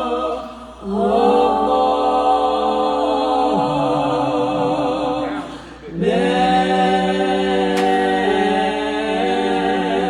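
A female gospel vocal group singing a cappella in close harmony, holding long chords with vibrato. The singing breaks off briefly twice, about a second in and again near six seconds, before each new chord comes in.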